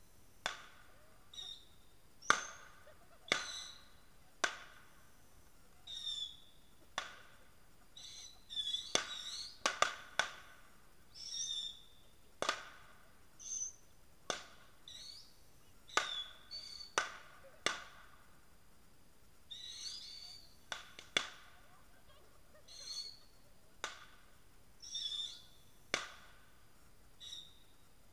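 Burning embers crackling: irregular sharp pops, many followed by a short high squeal or whistle, a few seconds apart or in quick clusters.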